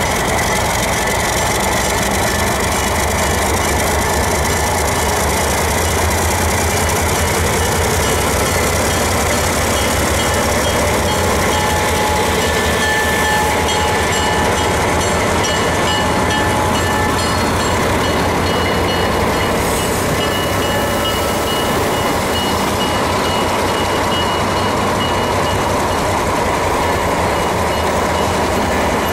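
Alco RS-3 diesel locomotive running with its train: a steady, loud engine rumble mixed with the noise of wheels on rail.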